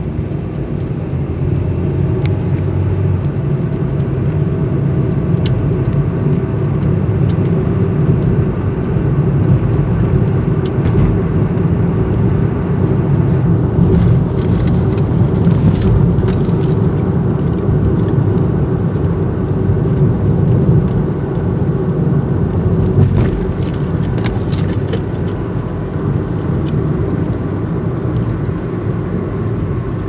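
Steady low hum of a car idling, heard from inside the cabin, with scattered small clicks and knocks that bunch together in the middle.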